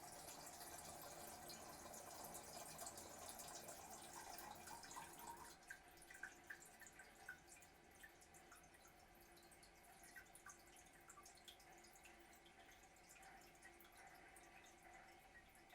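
Faint water running in a toilet after a flush: a steady rush that stops about five and a half seconds in, leaving scattered drips and trickles.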